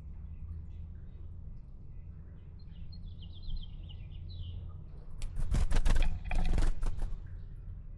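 Small songbirds chirping in quick high notes, then a loud flurry of splashing and fluttering wings about five seconds in, lasting under two seconds: a bird bathing in the birdbath. A steady low rumble lies underneath.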